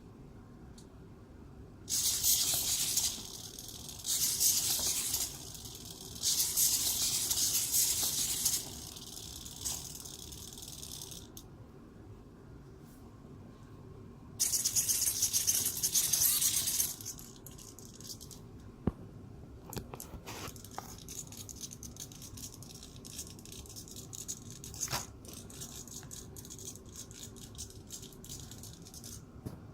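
The hexapod robot's SG90 micro servos whir in several bursts lasting one to about five seconds as its legs move. After that come scattered short clicks and ticks.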